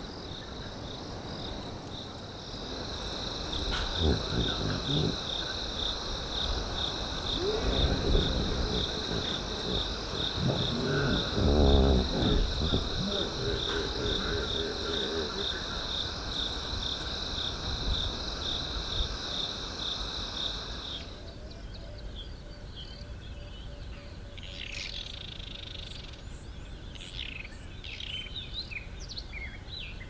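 Night chorus of crickets: a steady, high pulsing trill, with some lower calls mixed in through the middle. About twenty seconds in the trill stops and a few scattered bird chirps follow.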